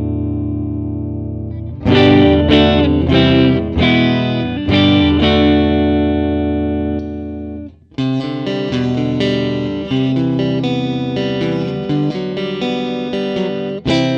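Harley Benton SC-DLX electric guitar with Tesla split-coil pickups, played with a clean tone through a Hotone Ampero One amp modeller. A held chord rings and fades, then picked chords and single notes follow, with a brief break a little past halfway before the playing goes on.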